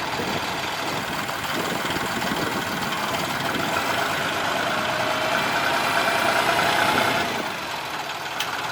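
Old Kubota tractor's diesel engine running under load as its front loader strains to lift a heavy rock. A whine rises over the middle, and the engine eases back about seven seconds in.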